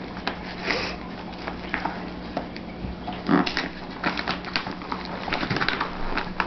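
Plastic-wrapped cardboard shipping box being worked open by hand: irregular scratching, crinkling and tapping of plastic and cardboard, with a steady low hum underneath.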